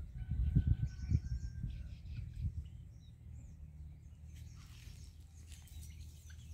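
Birds chirping with short high calls and one held whistled note in the first couple of seconds, over dull low thumps that die away after about two and a half seconds into a soft rumble.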